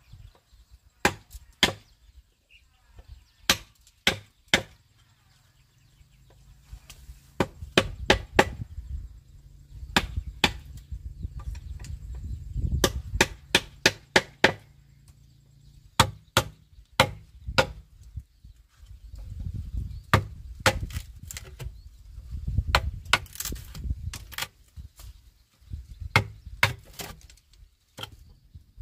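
Chisel being struck with a wooden mallet to cut a rectangular hole into the wall of a bamboo post. The sharp knocks come singly and in quick runs of several, with short pauses between runs, over a low rumble.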